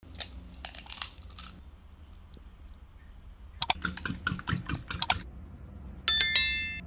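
Light taps, then a quick run of clicks as a whisk strikes the side of a ceramic bowl while beating batter. About six seconds in, a bright bell-like chime rings out loudly and fades away.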